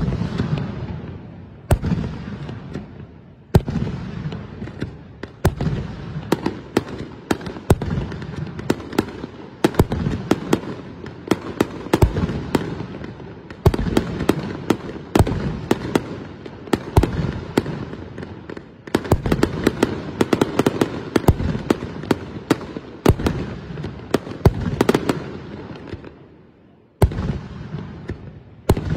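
Aerial fireworks display: a steady run of shell bursts, each bang trailing into a low rumble, with dense fast crackling between them. It eases briefly near the end before another strong bang.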